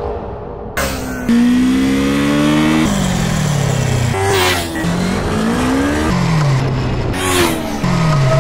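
Motorcycle engine revving hard, its note climbing and then dropping away several times, with music underneath.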